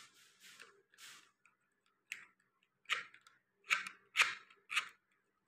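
Plastic Beyblade parts being handled: a string of about seven short clicks and rustles at uneven intervals.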